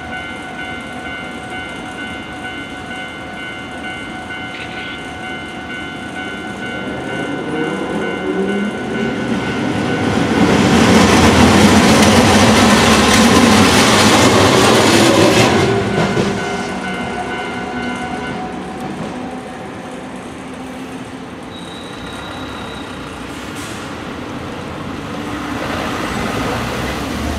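Japanese level-crossing alarm bells ringing steadily while a Hankai Tramway tram rolls over the crossing, its running noise swelling, loudest about ten to sixteen seconds in, then fading. The bells stop a couple of seconds after the tram has gone and start ringing again a few seconds later.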